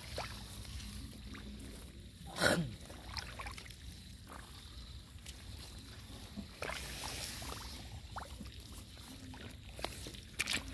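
Faint outdoor ambience of shallow paddy water with light sloshing and trickling, and one short call that falls in pitch about two and a half seconds in.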